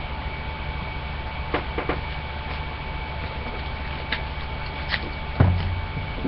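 Steady electrical hum and hiss of a webcam microphone, with a few light taps and knocks from movement at the desk; the loudest is a dull thump about five and a half seconds in.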